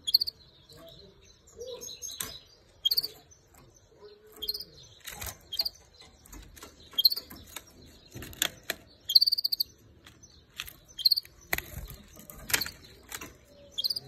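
Female canary giving short, high call notes, about one chirp a second, with sharp clicks scattered among them.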